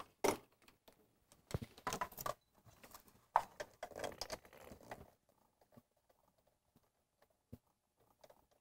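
Scattered small clicks, taps and rustles of hands working at the fuel rail's Schrader valve port as a fuel pressure gauge hose is connected to it, with one sharper tap about three and a half seconds in. After about five seconds it goes almost quiet, with a single faint tap near the end.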